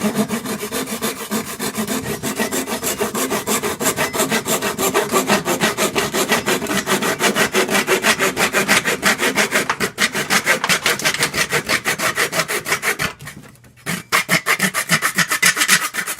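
A hand saw cutting through white PVC drain pipe in fast back-and-forth strokes, several a second. The strokes stop briefly a few seconds before the end, then carry on.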